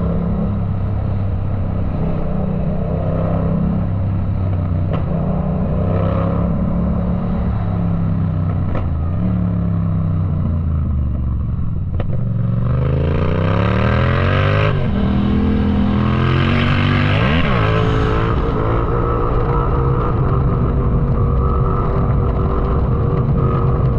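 Yamaha MT-07's parallel-twin engine running under way. It holds a fairly steady pitch with small throttle changes, then about halfway through it accelerates hard, the pitch rising, dropping at a gear change and rising again, with a quick blip before it settles back to a steady cruise.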